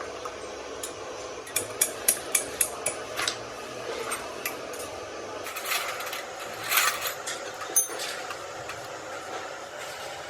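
Light metal-on-metal hammer taps on turbocharger parts: a quick run of about seven sharp taps in under two seconds, then a few scattered clinks of tools, over a steady workshop hum.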